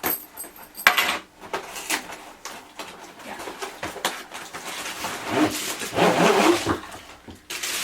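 A tripod's packaging being handled and worked open by hand: a few sharp knocks and clicks, then a longer scraping rustle about five seconds in.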